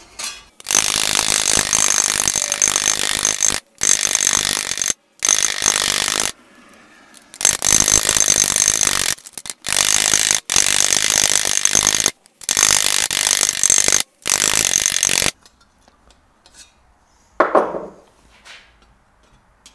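Small ball-peen hammer peening a sheet-steel helmet ocular on an anvil, stippling its surface. The strikes come so fast they run together into a steady metallic clatter with a high ring, in repeated stretches that stop abruptly. Near the end there is a single short knock.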